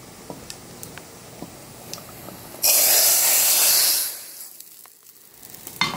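Hot oil with fried garlic and cumin poured into a pot of boiling dal (the chunkay): a sudden loud hiss and sizzle starting a little over two seconds in, lasting about a second and a half before fading out. Before it, only a faint crackle of the spices frying in the oil.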